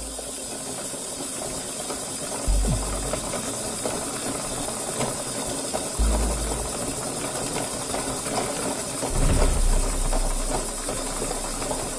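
Wimshurst machine's disks turning by hand crank: a steady whirring hiss from the mechanism, with a low rumble that comes and goes every three seconds or so. No spark cracks across the gap, because the terminal balls have been removed and no charge builds up.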